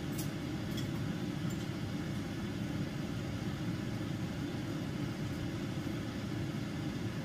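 Steady low rumble of background noise, with a few light clicks of utensils against bowls in the first second or two.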